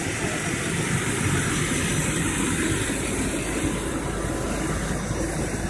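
Fire engine's diesel engine running steadily beside its pump panel, a loud, even rumble with hiss.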